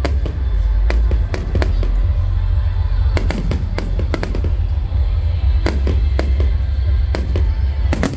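Fireworks display: a rapid, irregular series of sharp bangs and cracks, some in quick clusters, over a steady low rumble.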